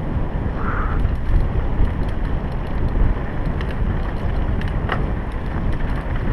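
Wind buffeting a helmet-mounted action camera's microphone as a mountain bike descends a dirt trail, over a steady rough rumble from the tyres on the ground. Scattered sharp clicks and rattles come from the bike jolting over bumps.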